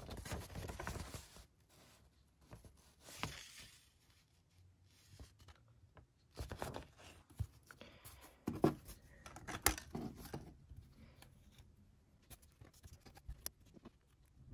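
Hands working a laser-cut plywood 3D puzzle: the paper pages of the instruction booklet rustle, then thin wooden parts are handled, with several short sharp snaps and clicks as small pieces are pushed out of the sheet and fitted.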